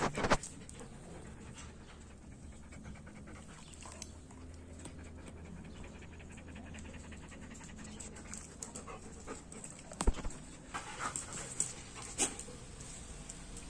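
Siberian husky panting steadily, mouth open. A few sharp knocks at the very start and again about ten seconds in are louder than the panting.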